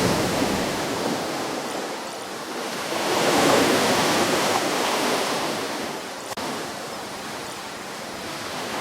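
Ocean waves breaking on a shore: a wave builds and crashes about three seconds in, then washes back and eases off, and the next one starts to rise near the end.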